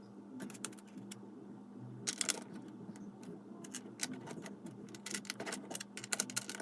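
Small plastic Lego pieces clicking and clattering as they are picked up and fitted together, in a few short, quiet clusters of clicks.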